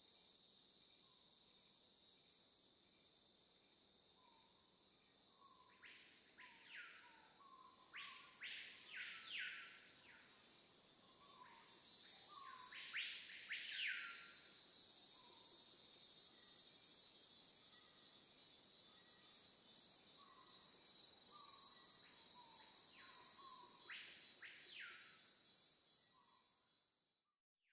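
Outdoor ambience of insects keeping up a steady high-pitched drone, with birds calling over it in a few short clusters of sweeping notes and fainter short chirps between; the sound drops out briefly near the end.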